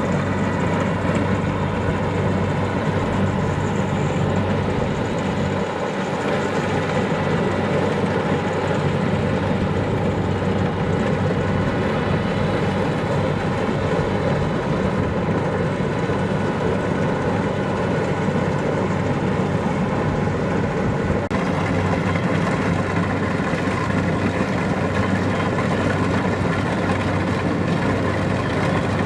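Kubota DC-70 Plus rice combine harvester's diesel engine running steadily under working load, an even mechanical drone that gets slightly harsher about two-thirds of the way through.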